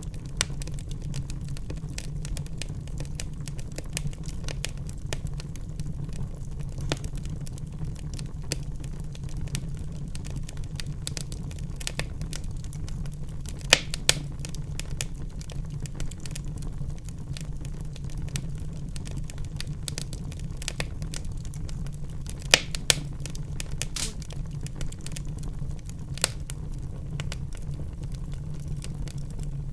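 Wood fire burning in a fireplace: a steady low rumble of flames under constant crackling, with sharp pops. The loudest pops come about halfway through and twice in quick succession about three-quarters of the way through.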